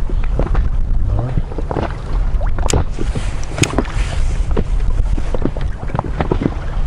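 Small waves lapping and slapping against the side of an inflatable PVC boat, with wind rumbling on the microphone. Two sharp clicks come a little under three and about three and a half seconds in.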